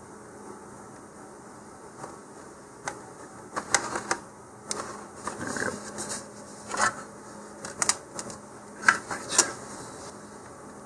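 Handling sounds of a cardboard rocket body tube and a plastic line-marking guide: after a few quiet seconds, a run of light clicks and knocks as the tube is lifted out of the guide and set down on a cutting mat.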